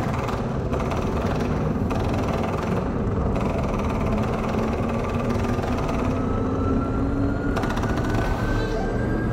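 Large saxophone with electronic sound design, making a dense, grainy low rumble rather than clear notes. From about four seconds in, a thin tone glides slowly upward over it.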